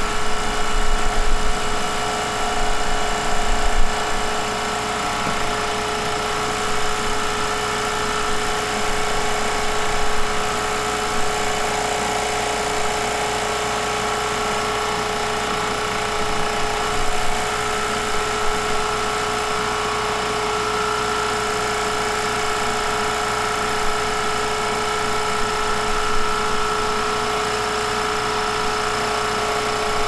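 Vevor RR500 refrigerant recovery machine running steadily on its slow recovery setting, a constant mechanical hum with a steady whine, as it pumps refrigerant into the recovery tank. A few light knocks in the first few seconds.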